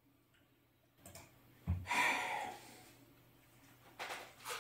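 Faint handling noises in a small room: a click and a low thump, then a breathy exhale like a sigh that fades over about a second, and a short rustle near the end.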